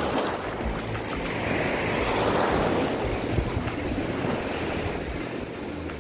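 Small waves washing up onto a sandy beach, a steady rush of surf that swells a little about two seconds in, with wind buffeting the microphone.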